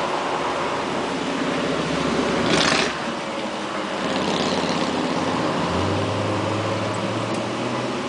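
Steady hum of a digital billboard's cooling fans mixed with traffic on a busy road: a short hiss about two and a half seconds in and a low engine drone joining about six seconds in.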